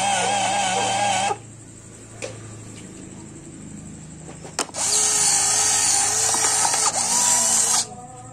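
Small DC gear motors of an Arduino-driven stamping machine whirring in two spells. The first stops about a second in; a sharp click comes just before the second, which runs for about three seconds and cuts off near the end.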